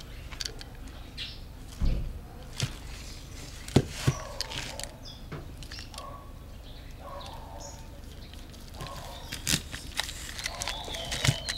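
Handling sounds of opening a wrapped block of bar soap: tape and plastic wrapping rustling as they are pulled off, and a knife working into the soap, with scattered sharp clicks and taps, the loudest about four seconds in.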